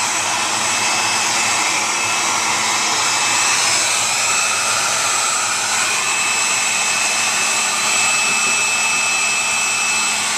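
Hair dryer running steadily, a rush of blown air with a steady high whine over it, blowing warm air to thaw ice and a frozen drain inside a refrigerator.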